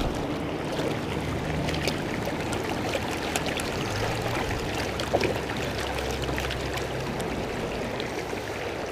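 A mountain creek running steadily while a plastic gold pan full of sand and gravel is dipped and worked in the water, with water washing through the pan and scattered small clicks of gravel and stones against it.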